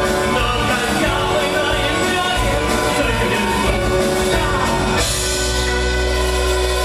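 Rock band and symphony orchestra, electric guitar with strings, playing the closing bars of a rock song, with a man's voice singing over it. About five seconds in the busy playing stops and the final chord is held, with a low drone underneath.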